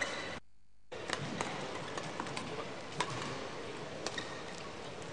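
Badminton rally: rackets striking the shuttlecock in sharp, irregular cracks about once a second, over a steady murmur from the hall crowd. The sound drops out briefly near the start.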